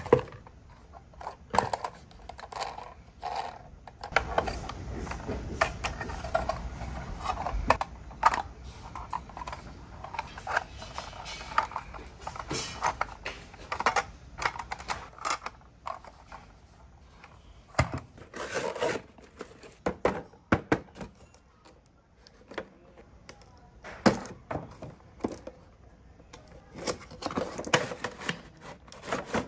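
Hard plastic toy parts clicking, tapping and knocking as they are handled, with irregular handling noise; a cardboard toy box is handled near the end.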